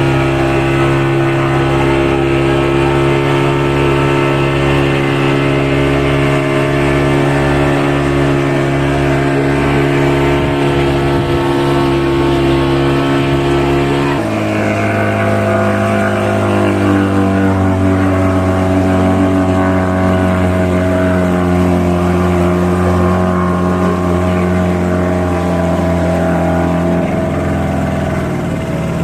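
Passenger boat's engine running steadily, then throttled back about halfway through, its pitch dropping and settling lower, with another small drop near the end.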